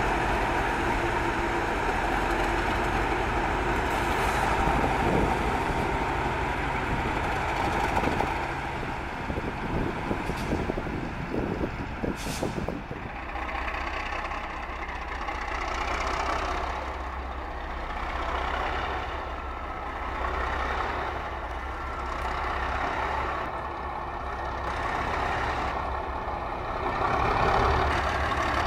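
Class 37 diesel locomotive running light, its V12 diesel engine giving a steady low drone. In the first half it is mixed with passing wheel-on-rail noise and a run of clicks; from about halfway the engine alone hums low and steady, growing louder near the end as the locomotive approaches.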